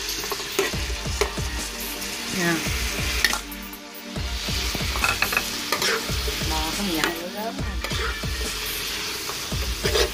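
Bitter melon and raw sliced beef stir-frying in a hot, oiled nonstick frying pan, sizzling steadily. A metal utensil scrapes and clicks against the pan as the beef is tipped in and stirred.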